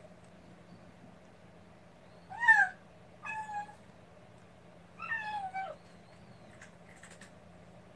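Tabby kitten mewing three times, short high meows that fall in pitch, about two, three and five seconds in; the first is the loudest and the last the longest.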